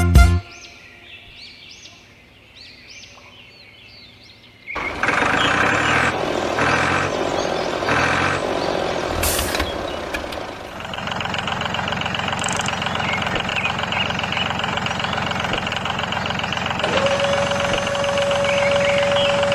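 A vehicle engine starts abruptly about five seconds in, after a quiet stretch with faint chirps. It pulses at first, then runs steadily, and a steady beep-like tone joins near the end.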